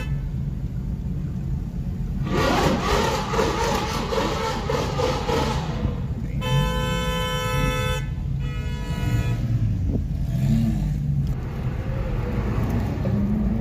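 Car horn honking, one long blast followed by a short one, over the low rumble of engines in traffic. Before it come a few seconds of loud, rough engine and tyre noise from a sports car doing a burnout.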